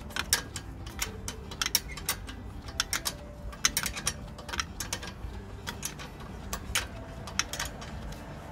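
Ratcheting wrench clicking in short irregular runs as a rear brake caliper bolt is tightened, with metal clinks of the wrench on the bolt.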